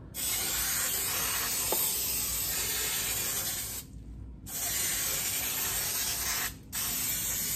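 Aerosol can of Pam baking spray hissing in three long sprays, with short breaks about four seconds and six and a half seconds in, as it coats the sides of a baking pan.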